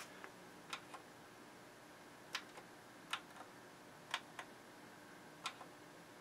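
Front-panel push buttons of a Harman Kardon Citation 23 tuner clicking as they are pressed and released, about five times, each press a pair of light clicks about a quarter second apart, over a faint steady hum.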